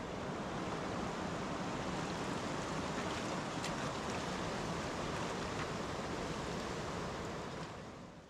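Steady rushing roar of a fast river, an even wash of water noise that fades out near the end.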